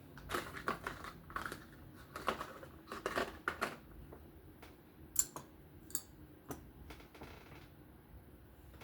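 Light clicking and clattering of small metal knife parts and tools being handled on a work surface: a quick run of clicks over the first few seconds, then a few sharper single clicks.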